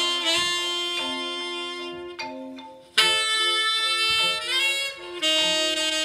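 Music played through a pair of National (Technics) SB-45 AlNiCo loudspeakers driven by a Revox B750 amplifier: sustained instrumental notes, with a loud new chord striking about halfway through.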